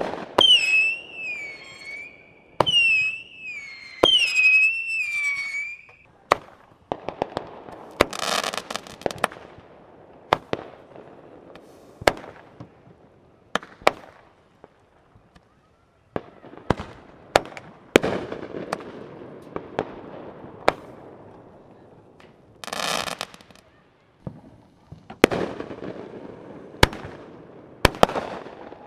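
Backyard consumer fireworks going off: sharp bangs and pops, crackling, and two hissing whooshes about a second long as pieces shoot skyward. A warbling high whistle sounds through the first few seconds.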